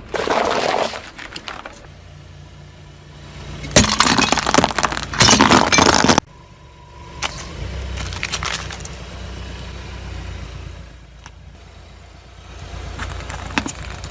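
A car's tyre rolling over and crushing objects: a short burst of crunching at the start, then a longer, loud stretch of cracking and crunching with sharp snaps that cuts off suddenly. A car engine runs low in between, with a few faint clicks.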